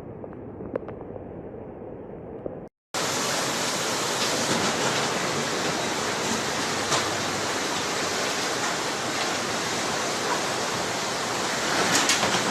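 Rushing floodwater: a loud, steady rush of fast-moving water that comes in after a brief dropout about three seconds in. Before the dropout, a quieter, muffled water noise with a few faint clicks.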